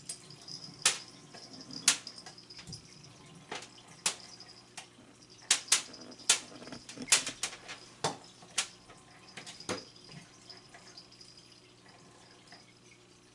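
Irregular sharp taps and clicks, about fifteen, clustered in the middle, as cats bat at a "Wild Thing" feather-wand cat toy and it flicks against the fridge and floor. Under them runs a faint, steady high whine that fades near the end.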